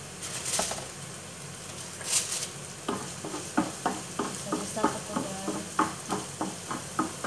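Chopped onions sizzling in hot oil in a frying pan, stirred with a wooden spatula. Two short hisses come in the first two and a half seconds. From about three seconds in there is a quick run of knocks and scrapes as the spatula strikes the pan, about three or four a second.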